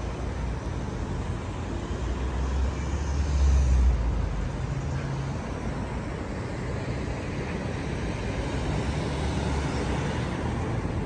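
City street traffic: cars, vans and a bus driving past in a steady noise of engines and tyres, with a deeper rumble that swells louder for a moment about three seconds in.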